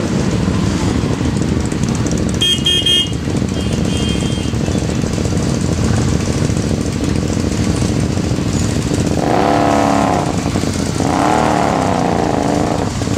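Several motorcycle engines running together at idle, with two brief high-pitched beeps a couple of seconds in. From about nine seconds in, engines rev up and down as the bikes start to pull away.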